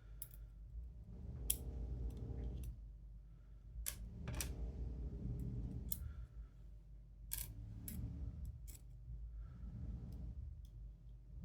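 Sharp metal clicks, about seven spread unevenly, with light handling rustle between them: small steel discs and spacers being pulled out of a disc-detainer padlock core with tweezers.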